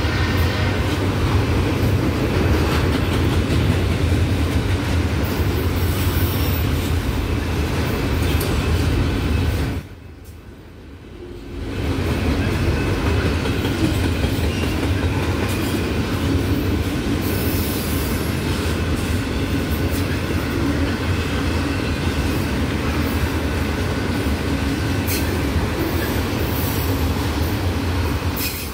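Empty autorack freight cars rolling past at track side: a steady rumble of steel wheels on rail with car-body rattle. About ten seconds in, the sound drops away sharply for under two seconds, then comes back as before.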